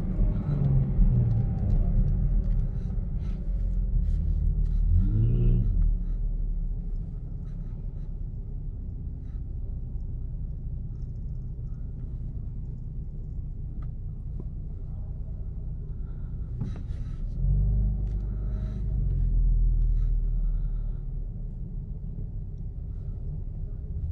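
Car engine idling with a low rumble, heard from inside the Camaro's cabin. There is a short rising rev about five seconds in, and the rumble swells louder for a few seconds about two-thirds of the way through.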